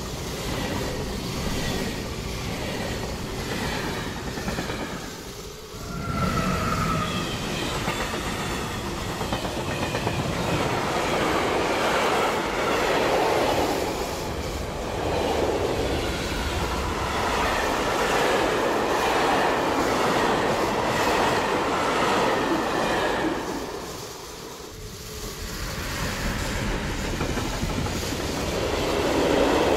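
Small motorized Kinder Surprise egg toy trains running on N gauge track: a continuous whirring rattle of tiny motor and wheels on rail that swells and fades as the train circles, with two brief lulls.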